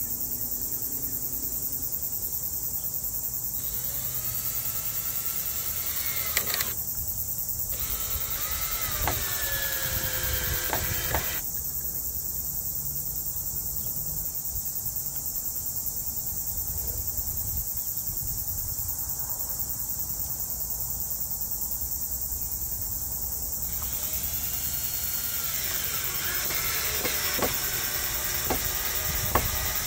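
Cordless drill driving screws through bamboo into the raft platform in three runs: a few seconds in, again around 8 to 11 seconds in, and from about 24 seconds to near the end. Each run has the motor whine rising and falling in pitch. A steady high insect chorus runs underneath.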